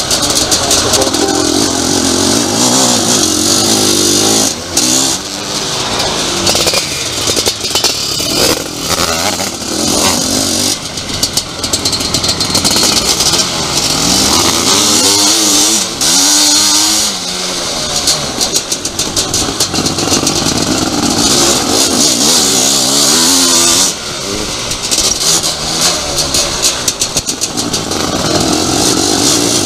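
Motocross sidecar outfit's engine heard on board at race pace, revving up and falling off over and over, with brief dips as the throttle is shut.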